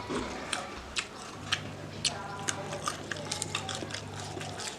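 Close-miked eating: a person chewing and biting food, with many sharp, irregular mouth clicks and crunches. A steady low hum runs underneath.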